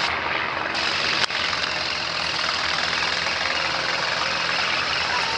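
Cessna 150's engine running steadily at climb power as the plane climbs away after takeoff, with one brief sharp click about a second in.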